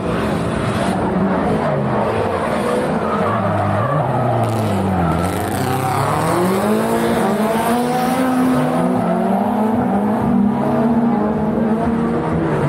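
Several drift cars sliding through a corner together, their engines revving up and down at different pitches over one another, with tyres skidding.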